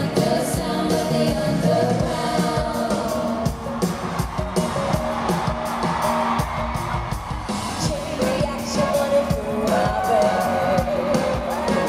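Live pop music from a concert: singing over a band with a steady beat, with crowd whoops mixed in.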